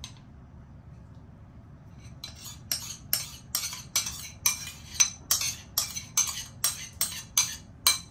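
Metal spoon clinking and scraping against the inside of a small ceramic bowl while scooping out melted butter: a regular run of strokes, about two and a half a second, starting about two seconds in.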